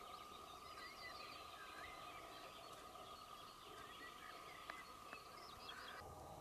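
Faint birdsong: many small chirps and twitters from several birds, over a faint steady high tone, with two small clicks near the end.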